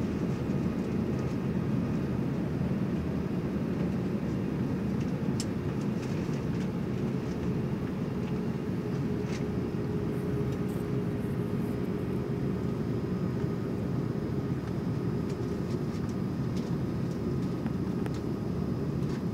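Steady low rumble inside the cabin of an Airbus A330-300 as it taxis, with a faint steady hum joining about eight seconds in and a few faint clicks.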